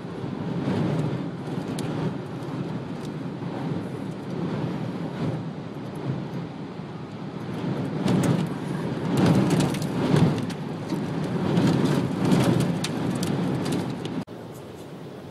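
Wind-driven rain beating on a moving car, heard from inside the cabin over tyre and road noise; it builds in gusting surges about eight to thirteen seconds in, then drops off abruptly near the end.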